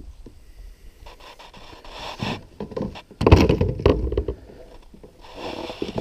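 Irregular scraping and knocking of gear against a kayak's hull as a hooked traíra is lifted aboard. The loudest, most cluttered scraping comes a little past halfway, with a shorter burst of rubbing near the end.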